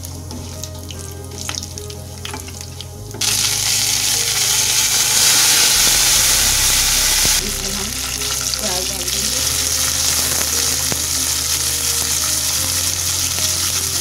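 Whole spices and curry leaves frying in hot oil in a non-stick kadai, with a spatula clicking against the pan. About three seconds in, the sizzling jumps suddenly to a loud, steady hiss. It drops back a little after about seven seconds as sliced onions go in and are stirred, and goes on sizzling.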